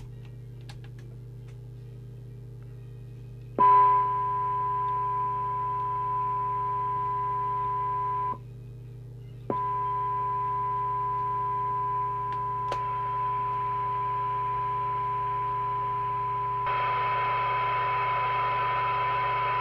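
Moonraker Minor II CB radio's loudspeaker with the squelch open: a low steady hum, then about three and a half seconds in a steady test tone from a signal generator comes through on top of it. The tone cuts out for about a second near the middle and returns with a click, then grows a little louder and rougher near the end. Turning the RF gain knob does not change it: the control does nothing, and the hum under the tone is put down by the owner to the radio's CPU or synthesizer.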